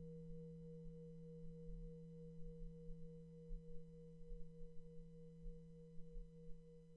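Faint, steady low humming tone with a higher overtone that pulses gently a few times a second.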